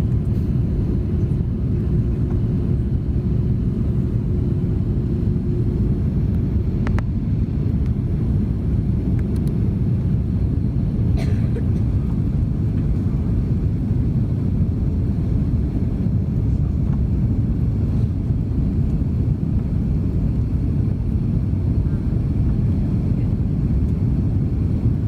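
Airbus A330-300 cabin noise: a steady low rumble of the engines and airflow heard from inside the cabin, with a faint steady hum that stops about six seconds in.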